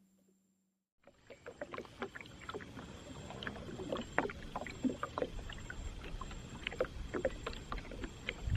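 Water lapping and clicking against the hull of a small boat on a river: many small irregular splashes and ticks over a steady wash, starting after about a second of silence, with a low bump right at the end.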